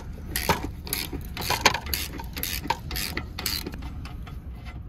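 Socket ratchet wrench clicking in repeated strokes, about two a second, as a suspension bolt is backed out.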